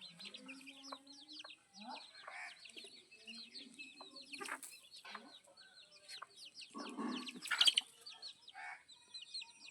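A flock of chickens clucking, over constant high-pitched cheeping, with one louder, harsher squawk about seven seconds in.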